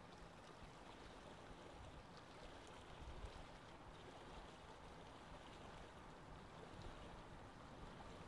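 Faint, steady trickle of water from a hang-on-back aquarium filter pouring back into the tank, with a few tiny ticks of bubbles and drips.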